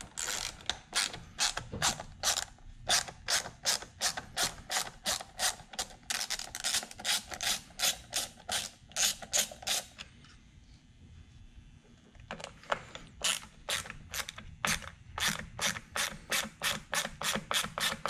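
Small hand ratchet clicking quickly, about three clicks a second, as a steering-wheel paddle-shifter screw is turned. It pauses for about two seconds near the middle, then starts clicking again.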